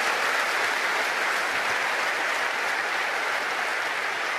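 Studio audience applauding steadily, easing off slightly toward the end.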